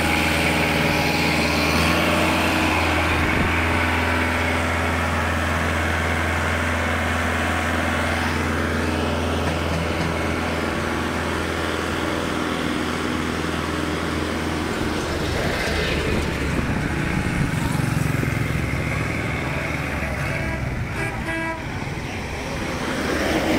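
Kubota L5018 tractor's diesel engine running steadily, then its note changes and grows rougher in the second half as the tractor is driven along and up a loading ramp.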